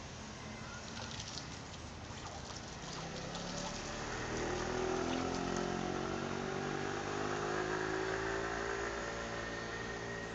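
A motor vehicle's engine passing by, growing louder about four seconds in and fading toward the end.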